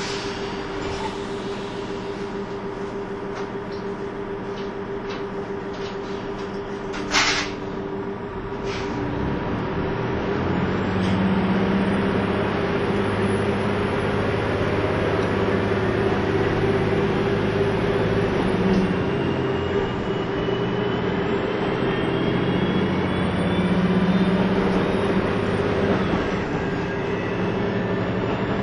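JR KiHa 25 diesel railcar heard from inside the car: the engine idles steadily, a short sharp hiss comes about seven seconds in, then from about ten seconds the engine note rises and the railcar pulls away and accelerates, with whines that glide up and down.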